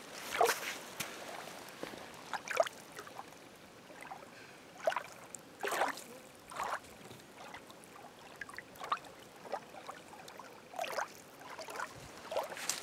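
Footsteps crunching on sand along a riverbank, irregular steps every half second to a second or so.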